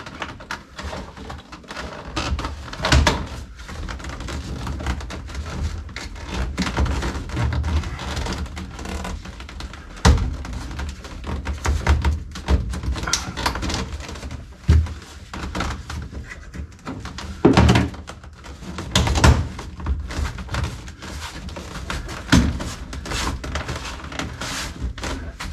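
Hands pressing a clip-on chrome trim strip onto a car's interior trim panel: irregular knocks and thumps, with one sharp click about ten seconds in and several heavier thumps later on.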